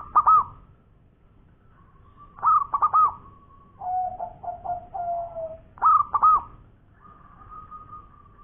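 Zebra dove (perkutut) cooing in repeated phrases. There are three loud bursts of quick looping whistled notes, about three seconds apart, joined by lower wavering notes and a long drawn-out coo near the end.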